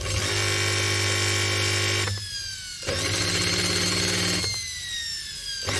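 An electric drill and a washing-machine brush motor wired in series, powered up in three bursts: each time a loud buzzing hum with many overtones, cutting off after one to two seconds while a whine slowly falls in pitch as the motors coast down. The motor is burnt out, with part of its winding short-circuited, so it hums and struggles instead of spinning freely.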